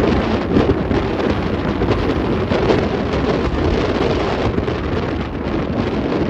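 Steady wind rushing over the microphone with road noise from a vehicle travelling at motorway speed, in irregular gusts.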